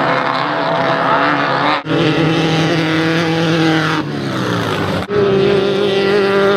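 Off-road race buggy engines running hard, loud and steady in pitch for stretches, with the pitch falling away once near the middle. The sound breaks off abruptly twice, about two seconds in and about five seconds in, as one stretch of engine noise gives way to another.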